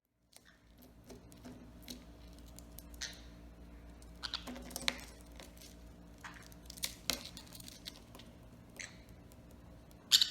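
Scattered light clicks and scratchy ticks over a low steady hum, with one louder, sharp short sound near the end.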